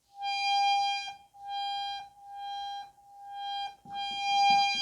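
Harmonium reed sounding one high note, played five times in a row with short gaps between, on light bellows air. Each press speaks at once, without delay or buzzing: the late-speaking reed has been cured by pressing its raised reed cover down.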